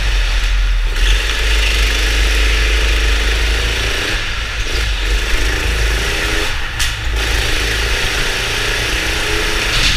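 Indoor go-kart's engine heard from on board, its pitch rising and falling as the driver accelerates and lifts off. The engine note drops away briefly about half a second in, around four seconds and near seven seconds, over a steady low rumble and hiss.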